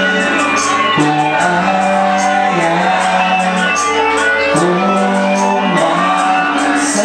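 Band playing a live acoustic song: strummed guitar under a sung melody of long held notes that slide between pitches.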